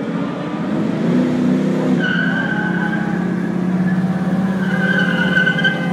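Car tyres squealing in two spells of about a second each, over the low, steady rumble of the car's engine.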